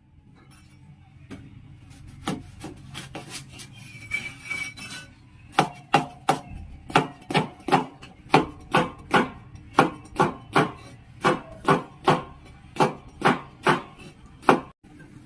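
A knife chopping food on a cutting board: a few light, uneven chops, then about halfway in a steady run of firm chops, a little over two a second.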